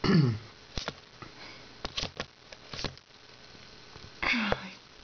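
A person's short, low, falling voiced sound, a few sharp clicks and taps through the middle, and a loud sniff about four seconds in.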